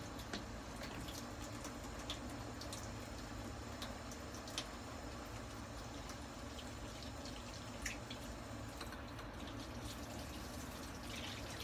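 Kitchen tap running and dripping, with a few sharp clicks scattered through it.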